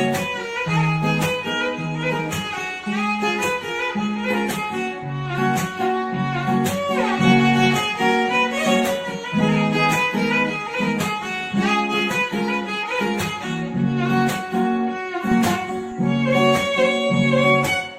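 Background instrumental music with a steady beat: a bowed-string, violin-like melody over a repeating bass line.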